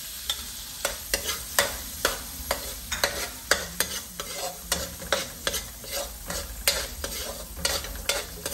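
Chopped garlic sizzling in melted margarine in a metal wok while a metal spoon stirs it, scraping and clinking against the pan irregularly, two or three times a second.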